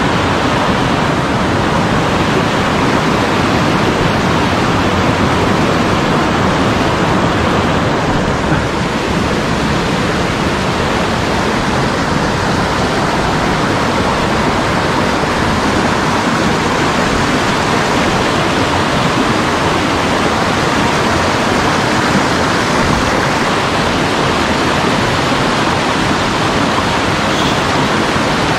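Rushing water of a mountain stream: a loud, steady rush with no breaks.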